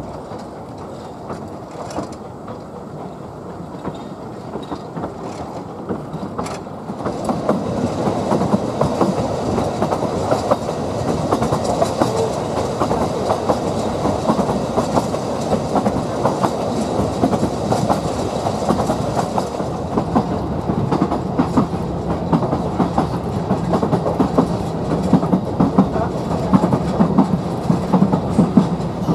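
Narrow-gauge train running along the track, a dense steady rattle of wheels and carriages that grows louder about seven seconds in.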